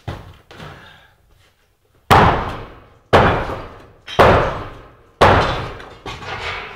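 A series of loud bangs, four of them about a second apart, each starting sharply and dying away before the next, after a fainter knock at the start.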